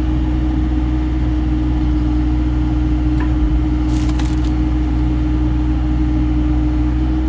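Bobcat E35 mini excavator's diesel engine running steadily with its hydraulics, a constant low drone and hum. A brief hiss about four seconds in.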